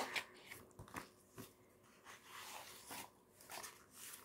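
Pages of a paperback picture book being turned and smoothed flat by hand: faint paper rustling with a few light taps and brushes.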